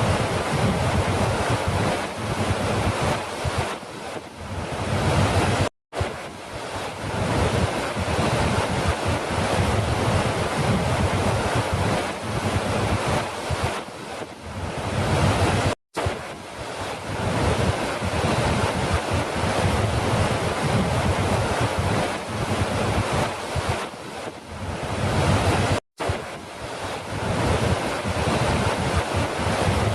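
Steady rush of falling water, an even wash of noise with no distinct events. It is a loop about ten seconds long that fades slightly and drops out for a split second at each restart, three times.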